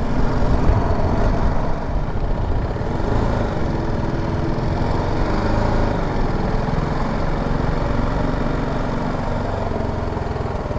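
Motorcycle riding at low speed through city streets: its engine running steadily under road and wind noise, with street traffic around it.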